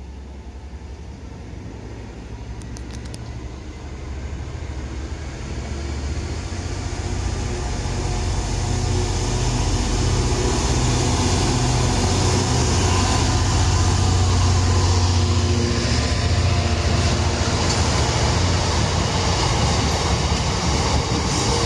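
Diesel-hauled freight train approaching and passing: a deep engine rumble builds steadily over about ten seconds and is loudest about two-thirds of the way through, then DB Cargo open box wagons roll past with steady wheel-on-rail noise.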